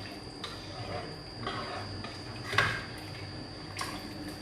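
A few faint knocks of a utensil against a cooking pot, about one a second, the clearest near the middle, over a steady faint high-pitched tone.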